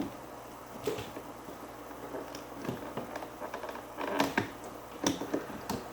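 Handling noise from Fluval FX6 canister-filter hoses and fittings being worked into place: scattered light knocks, clicks and rubbing, with a few sharper knocks between about four and five seconds in.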